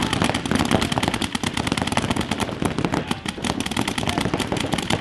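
Paintball markers firing in rapid strings, a dense stream of overlapping sharp pops.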